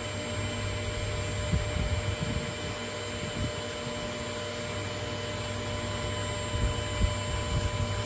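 Steady machine hum and hiss, with a few short low knocks as the metal valve block is handled and set down on the bench.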